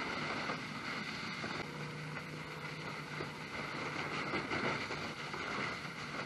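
A motor running steadily under wind noise on the microphone, with a low steady hum setting in about a second and a half in.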